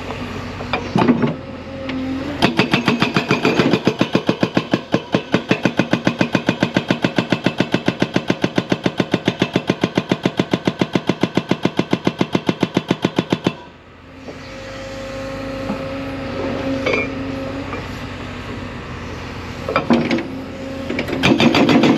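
A hydraulic breaker on a 55,000 lb JCB excavator hammering rock, with rapid, evenly spaced blows several times a second. The blows start a couple of seconds in and stop suddenly after about eleven seconds, and the excavator's diesel engine keeps running steadily after them.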